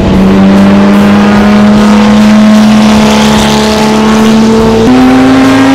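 Engine of a 1950s Maserati race car running under way, a loud steady note that climbs slowly in pitch and steps up once about five seconds in.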